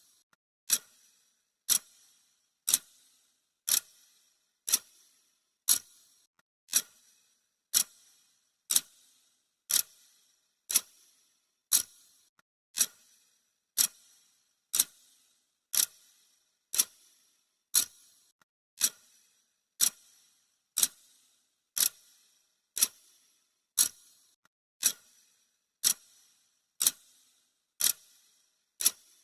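Clock ticking sound effect: sharp, even ticks about once a second.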